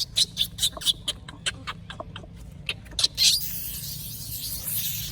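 A monkey making a rapid series of short, sharp high-pitched sounds, about five a second. About three seconds in, a steady hiss takes over.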